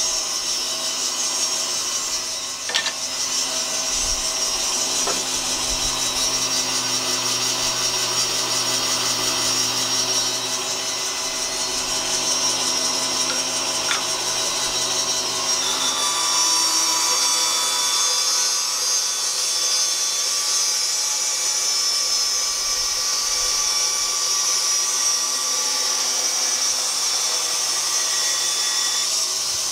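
Bandsaw running and ripping a red oak board lengthwise along the fence, a steady cutting noise.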